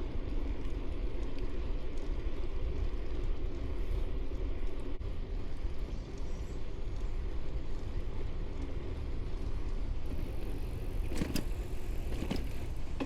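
Steady low rumble of wind on the microphone and riding noise from a 1994 GT Timberline mountain bike being pedalled along the road, with two short clicks about a second apart near the end.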